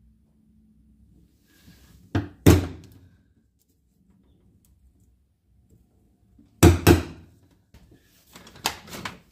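Hammer striking a centre punch on the Land Rover Defender's metal bulkhead, marking the cut-out before it is cut: two sharp metallic strikes about two seconds in, two more about six and a half seconds in, then a few lighter knocks near the end.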